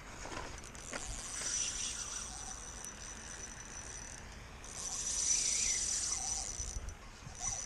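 Okuma Stratus V spinning reel being cranked to retrieve line: a high, steady whir in two stretches, broken by a short pause about four seconds in.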